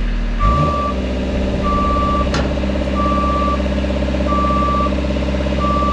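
A powered man lift moving: its motor starts with a short rise in pitch about half a second in and then runs steadily, while its motion alarm beeps a single steady tone about once every second and a quarter, five times. One sharp click midway.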